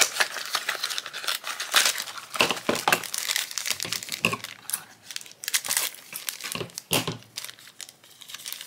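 Crinkling and tearing of packaging: a cardboard pin blind box being opened and its crinkly black foil pouch handled and torn open, a dense run of irregular sharp crackles that thins out near the end.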